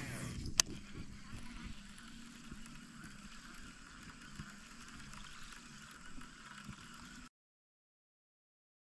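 A sharp click about half a second in, then a toad buzz bait being retrieved across the water surface, a faint steady churning and gurgling, with the baitcasting reel winding. It cuts off abruptly about seven seconds in.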